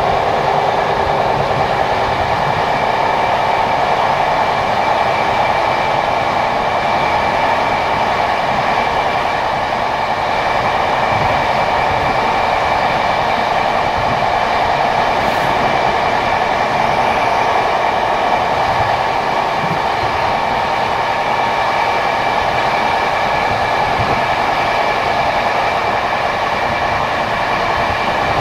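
PKP TLK passenger train running steadily on the rails, heard from aboard: a continuous rolling wheel-on-rail noise with a steady high whine over it.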